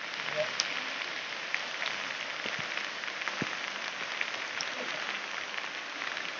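Steady rain falling on wet paving and nearby roofs, an even hiss with scattered sharp drip ticks.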